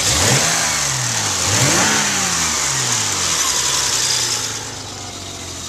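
BMW inline-six engine, swapped into an E30 318i, blipped twice: its pitch rises and falls twice in the first three seconds, then settles to a steady idle. A high hiss runs with the revs and fades about four and a half seconds in.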